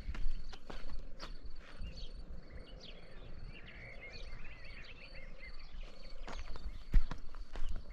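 Small birds chirping and twittering, busiest in the middle, over a steady high insect trill. Footsteps sound at the start and again near the end, with one heavier step about seven seconds in.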